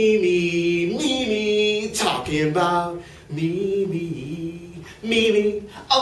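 A man singing unaccompanied, holding long notes that slide up and down in pitch, in phrases with short breaks between them.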